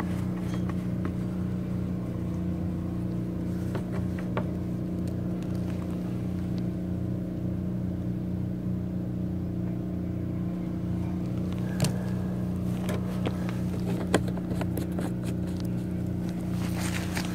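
An engine running at a steady speed, a constant low hum. A few light clicks and knocks of handling come about twelve and fourteen seconds in.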